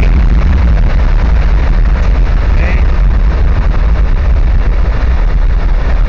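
Car moving at highway speed: a loud, steady, deep rumble of wind buffeting the microphone, mixed with road noise.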